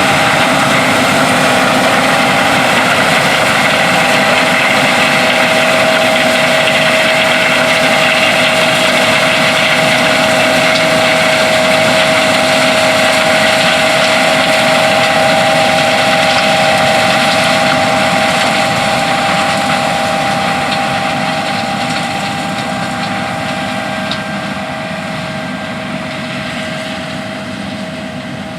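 John Deere S670 combine running while harvesting corn: a steady engine-and-machinery drone with a high whine. It fades gradually over the last ten seconds.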